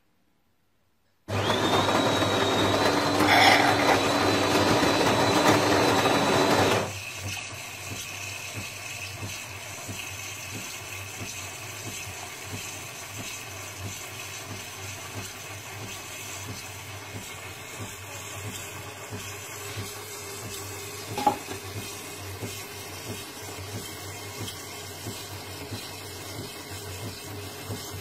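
De'Longhi PrimaDonna Elite's milk system frothing and dispensing milk into a glass. It starts suddenly with a loud hiss and a high whine for about five seconds, then drops to a quieter steady hiss over a low hum as the frothed milk pours, with a single click about three-quarters of the way through.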